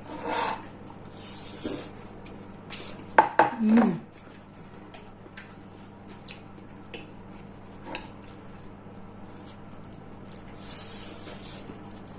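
Cutlery clinking and scraping on plates during a meal, with scattered light clicks and a louder cluster of clatter about three to four seconds in.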